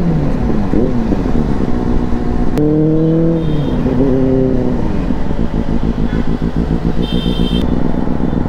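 Superbike engine running on the move, its pitch rising and falling with the throttle and gear changes, then settling into a fast low pulsing in the last few seconds.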